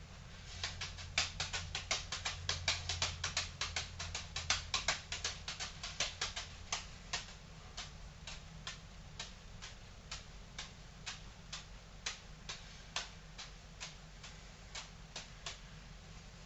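Beanbag juggling balls slapping into the hands at each catch: a rapid run of about five catches a second during the four-ball shower, then a slower, even two or so a second once one ball sits on the forehead and three are juggled in a cascade.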